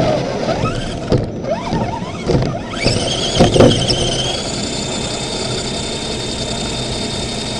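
RC crawler's electric motor and drivetrain whining under throttle: a few short rising blips with some knocks, then about three seconds in it spins up to a high, steady whine that holds.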